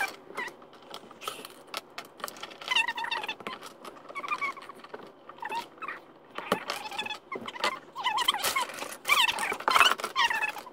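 Plastic Lego bricks rattling and clicking as pieces are rummaged through and handled, with intermittent high-pitched wavering vocal sounds over the top.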